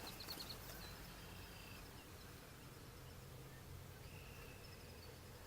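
Faint outdoor ambience with a few distant bird chirps over a low steady background.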